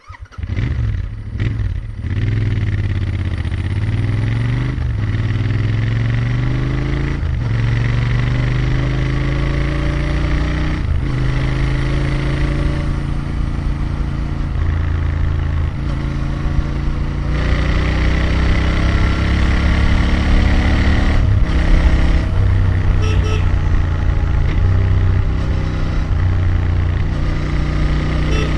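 Royal Enfield Interceptor 650's parallel-twin engine and exhaust pulling through the gears. The engine note climbs and drops back at each of several upshifts, then runs steadily at cruising speed with a couple of later shifts.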